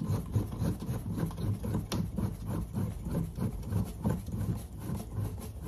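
The knob on a fish finder's gimbal mounting bracket is being unscrewed by hand, making a quick, even run of small clicks and rubs, about four a second.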